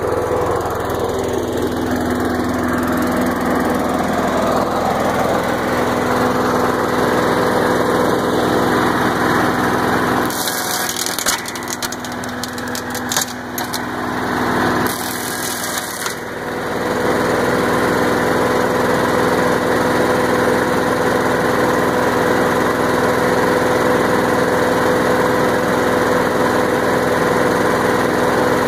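Troy-Bilt CSV 060 chipper shredder vacuum's small single-cylinder engine running steadily after being started. About ten seconds in, for five or six seconds, a stick goes into the vacuum hose and crackles and clatters as the machine shreds it, then the engine runs on alone.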